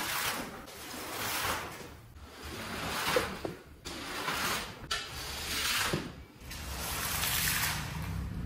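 A filthy shaggy rug being worked over in repeated long swishing strokes, about six, each swelling and fading over roughly a second.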